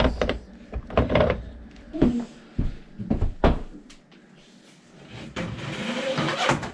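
Knocks and clunks of a dishwasher being worked into its under-counter opening, about six in the first few seconds, then a scraping noise lasting about a second near the end.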